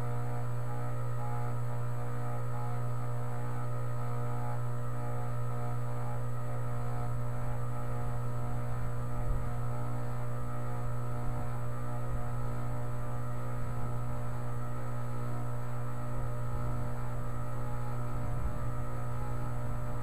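2010 Tempstar 3-ton heat pump outdoor unit running in a cold, snowy night with a steady, unchanging electrical hum.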